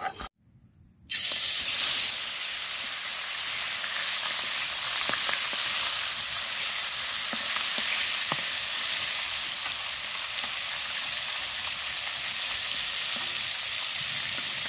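Turmeric- and salt-rubbed bata fish pieces frying in hot mustard oil: a steady sizzle that starts about a second in, after a brief silence, with a few faint pops.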